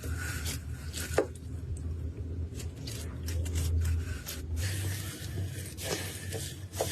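Slime being squeezed and stretched by hand, making sticky crackles and a few short pops, over a steady low hum.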